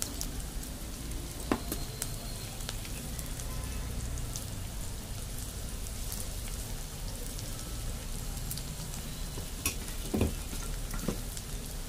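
Chopped onion, ginger, garlic, green chilli and cumin seeds frying in hot oil in a kadhai for a tadka: a steady sizzle with a few sharp pops and crackles, several of them near the end.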